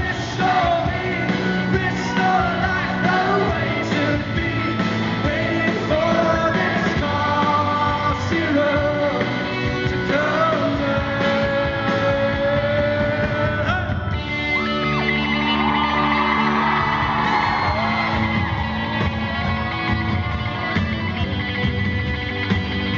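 Live rock song: a male lead singer with a full band, recorded in a theatre hall.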